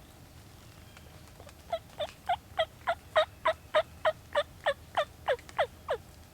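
A long series of turkey yelps: about fourteen evenly spaced notes at roughly three a second, the last few dropping in pitch.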